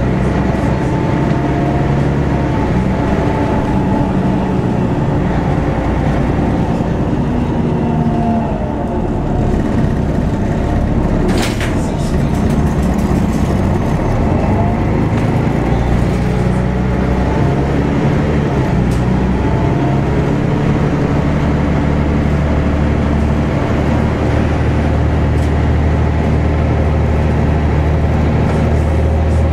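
Inside a Volvo B10BLE single-deck bus on the move: its diesel engine running steadily, the pitch rising and falling several times as the bus speeds up and slows. A brief sharp high-pitched sound about halfway through.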